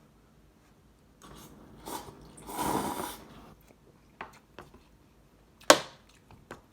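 A person eating instant ramen noodles: a long, noisy slurp a second or two in, then a few small mouth clicks and one sharp, loud click near the end.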